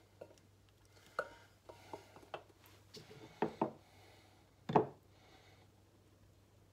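Kitchenware knocks and taps as a stainless pot and a plastic funnel touch a glass jar while thick relish is poured and worked through the funnel: a string of short, separate knocks, with a pair about three and a half seconds in and the loudest just before five seconds.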